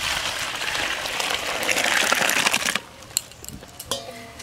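Hot cooked mung dal being poured from a pot into a large aluminium pot, splashing and gushing for about three seconds before stopping abruptly. A few sharp clicks follow near the end.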